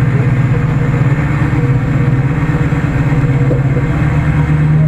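Ford F-250 pickup's engine running steadily, a low even drone, with the truck stuck in mud.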